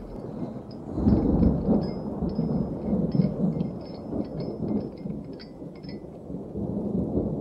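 Rolling thunder rumbling in slow swells, louder about a second in, with faint rain.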